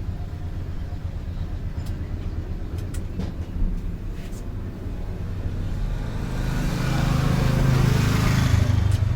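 Street traffic rumbling steadily, with a motor vehicle passing close by, growing loudest about seven to nine seconds in and then easing off.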